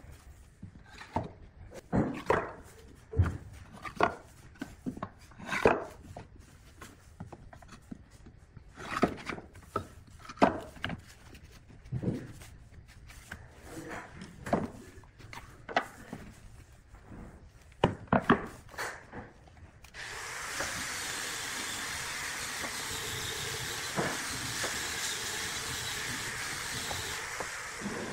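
Irregular wooden knocks and taps, a few a second, as pieces of wood are handled in a workshop. About two-thirds of the way in, a steady hiss starts and runs on.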